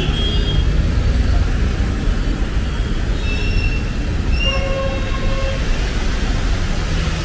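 Busy city road traffic: a steady low rumble of passing vehicles, with a few short horn toots, several of them between about 3 and 5 seconds in.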